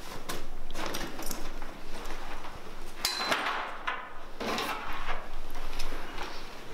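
Rustling, knocks and clinks of a laptop bag being handled and set down on a table, with a sharp knock about three seconds in.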